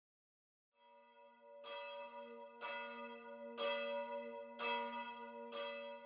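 Church bell tolling five times, about once a second, each strike ringing on into the next. The toll is fairly faint.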